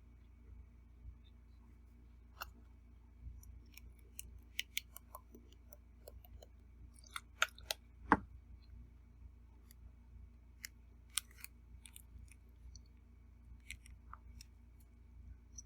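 Someone eating: scattered sharp clicks of a fork and spoon against a plate, with chewing; the loudest clicks come about seven to eight seconds in.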